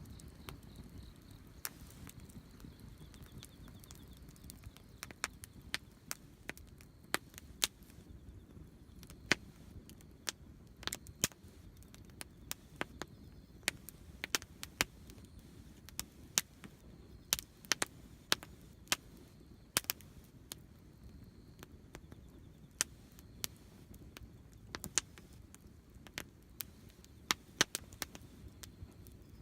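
Wood campfire crackling, with sharp irregular pops over a low steady rumble.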